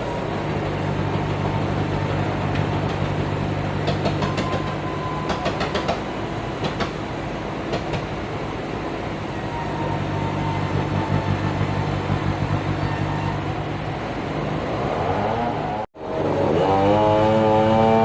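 Sawmill machinery runs with a steady low mechanical hum, with a run of sharp clattering knocks partway through. Near the end the sound cuts out for a moment, then a louder machine whine comes in, rises in pitch and holds steady.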